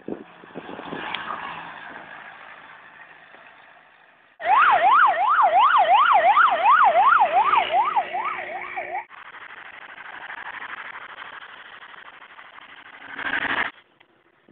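Police vehicle siren sounding a fast up-and-down yelp, about two to three sweeps a second. It cuts in sharply about four seconds in and stops about five seconds later. Road and traffic noise runs before and after it.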